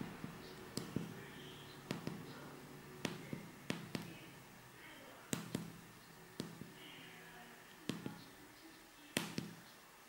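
Fingertips pressing the keys of a 4x4 membrane keypad one at a time: a series of faint, irregular taps, often two in quick succession, while a password is keyed in.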